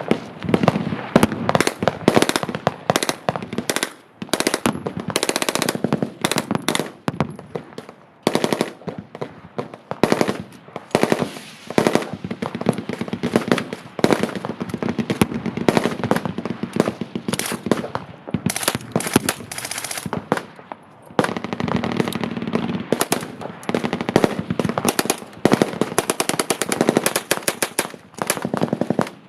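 Machine guns firing fully automatic bursts, one after another with only brief pauses.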